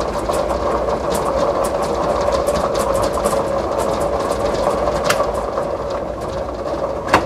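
Motorised lottery ball-draw machine running: a steady motor hum under numbered balls clattering against the clear globe and its spinning paddle rotor, with a sharper knock about five seconds in and another near the end.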